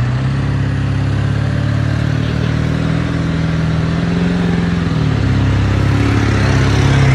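Ford 7.3 Powerstroke turbodiesel V8 revved high and held, dropping back to a lower steady speed about five seconds in.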